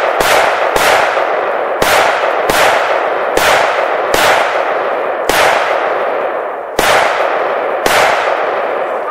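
A string of about nine single gunshots fired at an uneven pace, roughly one a second, each followed by a long echo that rolls off.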